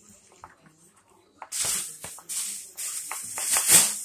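Pencil scratching on paper in several bursts of writing strokes, starting about a second and a half in and loudest near the end.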